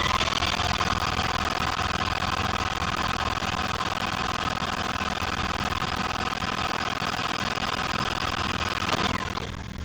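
Rewind / fast-forward sound effect: a steady mechanical whir of several high tones over a low hum, running evenly after spinning up, then winding down with a falling pitch about nine seconds in.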